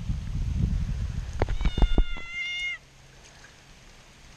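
A frightened cat meows once, a drawn-out call about two seconds in. Before it come low rumbling and a few sharp knocks.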